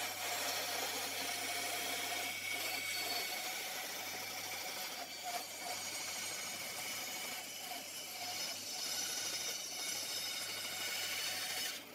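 Makita band saw running steadily, its blade cutting through an olive wood blank as the wood is fed by hand.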